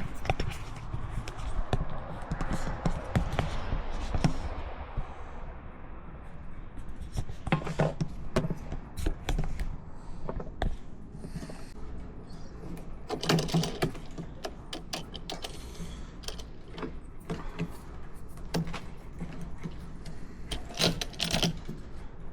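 Irregular clicks, knocks and light rattles of a camera support clamp being loosened, moved and refitted by hand, with heavier bursts of handling now and then.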